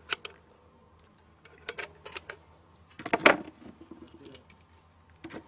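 A few sharp clicks as 20-gauge slug shells are loaded into the Balıklı Makarov S20 shotgun, then one louder clack about three seconds in as the loaded shotgun is handled and raised.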